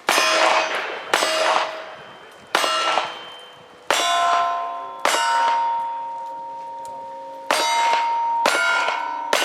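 A string of about eight gunshots, mostly a second or so apart with a longer pause in the middle, each followed by the ringing clang of a steel target being hit.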